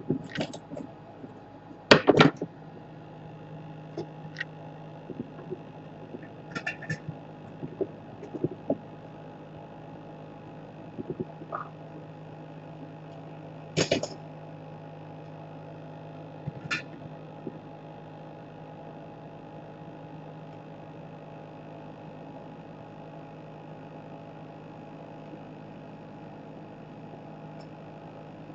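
Scattered sharp clicks and taps of small tools being handled over a steady electrical hum, the loudest tap about two seconds in and another about fourteen seconds in.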